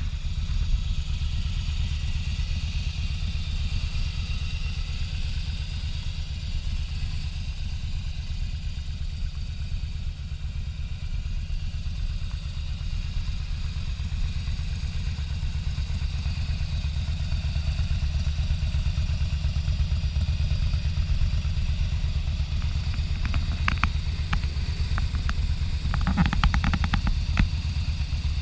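Harley-Davidson Fat Boy's V-twin engine idling steadily.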